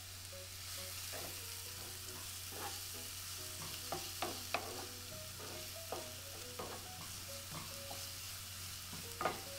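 Chopped red onions sizzling gently in melted margarine in a nonstick pan while a wooden spoon stirs them around, with scattered light taps and scrapes. The onions are being sautéed until soft.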